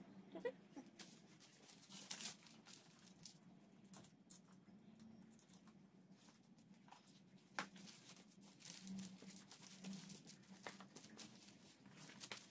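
Faint scattered rubbing and clicks as hands work a minivelo bicycle tyre's bead over the rim, with a faint low hum throughout.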